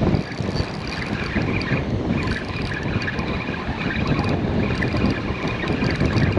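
Strong wind buffeting the microphone with a steady low rumble, over the wash of ocean surf.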